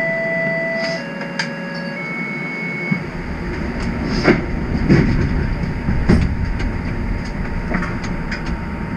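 TTC streetcar from inside: a three-note electronic chime, one steady tone after another, then a low rumble sets in about three seconds in, with a few clunks and rattles between about four and six seconds.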